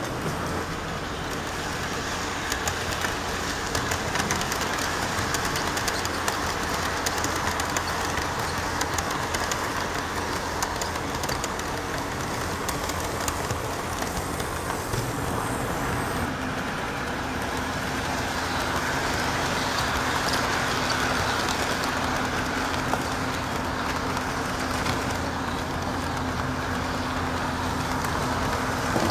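HO scale model trains running on the layout's track: a steady rumble of motor and wheels with dense fine ticking. A steady motor hum comes in about halfway through.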